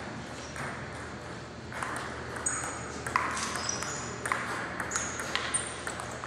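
Table tennis rally: the plastic ball clicking off the paddles and bouncing on the table in sharp pings. There are a few hits early, then a quicker run of about two a second from about halfway through.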